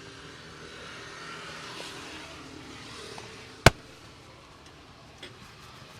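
One loud, sharp crack about three and a half seconds in, with a fainter click a moment later, over steady street traffic noise.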